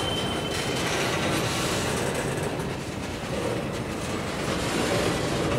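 Tank cars of a freight train rolling past: steady wheel rumble and clatter over the rails, with a thin high wheel squeal that stops about a second in.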